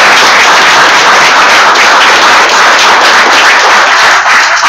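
Audience applauding, a dense steady clapping that holds loud throughout.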